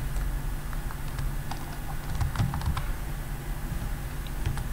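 Computer keyboard typing: irregular keystroke clicks in short flurries over a low, steady hum.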